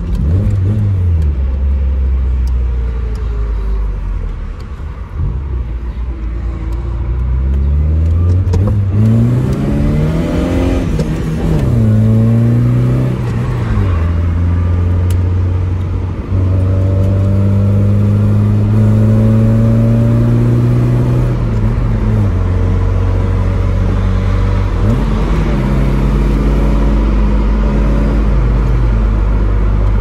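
Tofaş Doğan SLX's four-cylinder engine heard from inside the cabin, accelerating hard through the gears. The engine note climbs in pitch, falls away at each gear change and climbs again, then runs steadily at a higher pitch, with one more drop and a short rev near the end.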